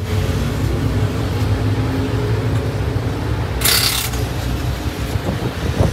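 Motor-vehicle engines running steadily in a low rumble, with a short burst of hiss a little over halfway through.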